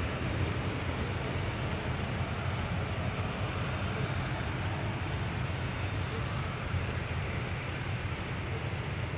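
Air Baltic Boeing 737's jet engines running on the runway as the airliner lines up for takeoff, a steady noise with most of its weight low down.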